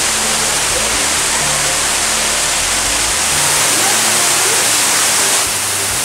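Waterfall in an indoor rainforest exhibit, a loud steady rush of falling water, under background music of soft, low held notes. The rush drops a little just before the end.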